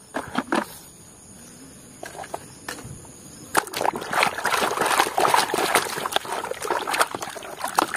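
Muddy water sloshing and splashing in a plastic basin as a plastic toy truck is swished and scrubbed through it by hand. The splashing starts about three and a half seconds in, after a few light clicks and a quieter stretch.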